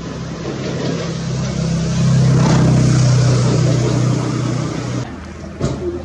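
A motor engine running with a steady low hum that swells about two seconds in and drops away about five seconds in, followed by a short sharp click.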